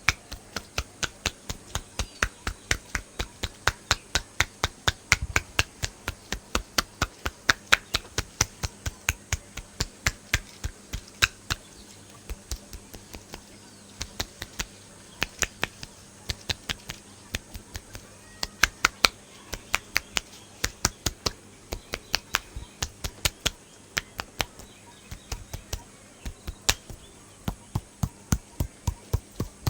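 Rhythmic hand slaps and taps of a head massage: sharp claps at about three a second, with a couple of short lulls.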